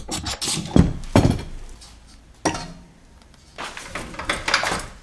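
Metal wrench clinks and knocks against a car's rear wheel hub and strut while the 10 mm ABS sensor bolt is being taken out, with a few sharp knocks about a second in and more clattering near the end.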